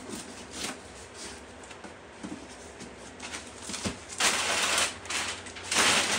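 Cardboard shipping box being opened by hand: light scratching and clicks as the taped top is worked open, then loud rustling about four seconds in and again near the end as the flaps are folded back and packing paper is pulled out.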